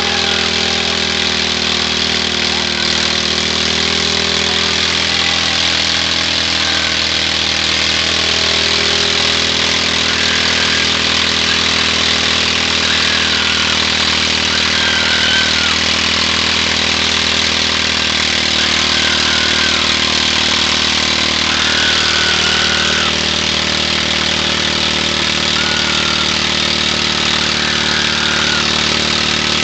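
Riding lawn mower engine running steadily under load while the rear wheel, its tire burst, spins on the bare rim against the ground, with a dense steady scraping noise over the engine.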